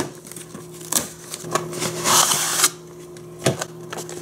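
Cardboard toy box being opened by hand: a sharp click at the start, a few smaller knocks, and a longer rustling, tearing sound about two seconds in as the glued flap and packaging are pulled apart, over a low steady hum.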